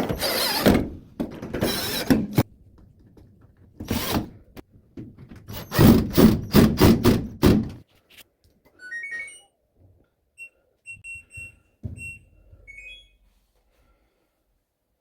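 Loud knocks and scraping bursts of handling in the first eight seconds, then an LG top-loading washing machine's control panel beeping: a short rising chime, several single button beeps, and another short rising chime as the machine is set to run.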